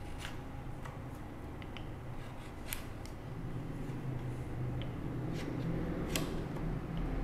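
Bench chisel paring thin shavings off a small wooden wedge to taper it: a few crisp, scattered cutting snicks, a second or more apart. A low steady hum grows louder in the second half.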